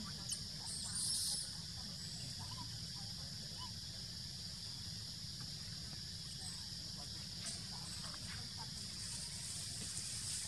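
Steady high-pitched insect drone in tropical forest, over a low rumble, with one brief high scratchy sound about a second in.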